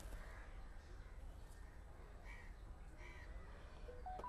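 Crows cawing faintly in the background, several separate caws. Near the end come a few short electronic beeps, stepping up in pitch.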